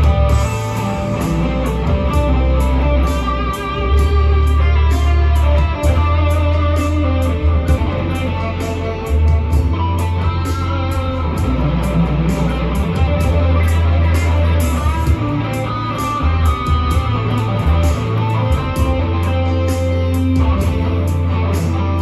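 Electric guitar improvisation on a Telecaster-style guitar, with single notes and melodic lines. It is played over a backing track with a deep, sustained bass line and a steady beat of regular ticks.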